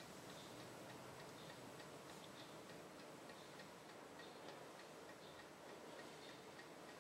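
Near silence: quiet room tone with faint, light ticks.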